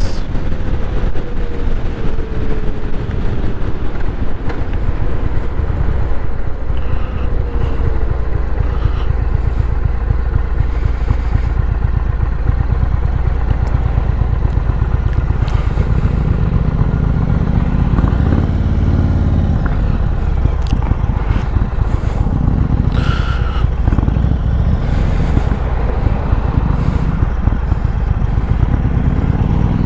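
Indian Chief Bobber's 116 cubic-inch V-twin running under the rider, with wind rush on the microphone at road speed. The engine sound drops in pitch in the first few seconds, and its low, even beat grows stronger about halfway through as the bike slows for a junction and then pulls away through a turn.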